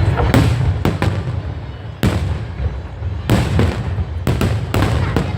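Fireworks going off: about nine or ten sharp bangs at irregular intervals over a continuous low rumble.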